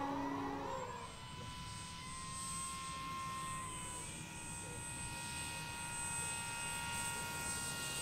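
Electric motor and propeller of an FMS PA-18 Super Cub RC plane whining. The pitch drops and the sound gets quieter over the first second, then holds a steady, quieter whine as the plane comes in low over the runway to land.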